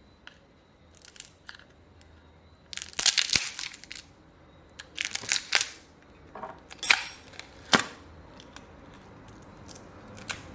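Several short bursts of crinkling, crackling handling noise, the loudest about three seconds in, with scattered small clicks between them as phone parts are handled during reassembly.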